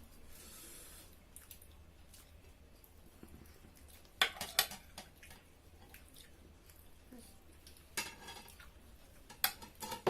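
Cutlery clinking and scraping against plates during a meal, with a few sharp clinks about four seconds in and a few more near the end.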